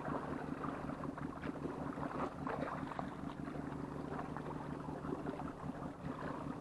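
Steady low hum of a motorboat engine running offshore, even and unchanging, with light scattered ticks over it.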